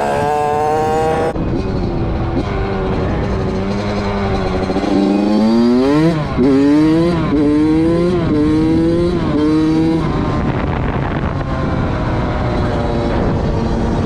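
Suzuki RM85 dirt bike's 85cc two-stroke engine being ridden, rebuilt and running well. About halfway in it revs up and shifts up several times in a row, each rise in pitch cut by a drop, then settles to a steadier, lower note.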